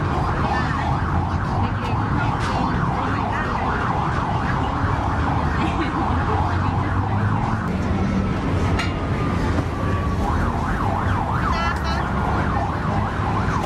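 Busy street-market ambience: many people talking at once over a steady low rumble.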